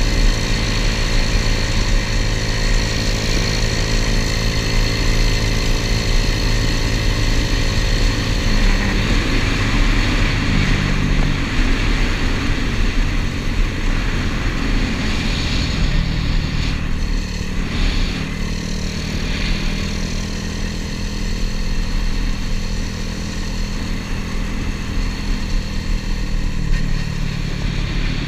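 Honda ATC70 mini three-wheeler's swapped-in 125cc single-cylinder four-stroke pit-bike engine running under way at cruising speed, its pitch shifting now and then.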